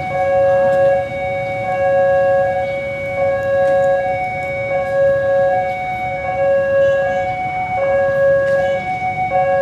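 Railway level-crossing warning alarm sounding: an electronic two-tone signal alternating between two pitches, each held for just under a second, repeating steadily. It signals that a train is approaching and the crossing gates are closing or closed.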